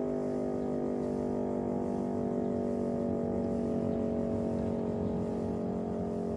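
Public time-signal siren sounding the 5 p.m. signal, holding a long steady tone made of several level pitches layered together.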